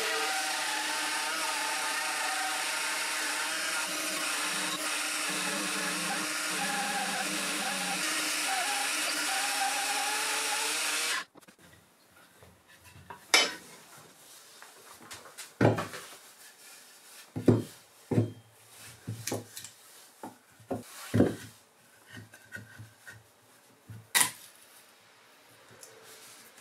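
Band saw running and cutting wood, a steady loud noise whose pitch wavers slightly with the cut, stopping abruptly about eleven seconds in. After it come scattered sharp knocks and quieter handling sounds.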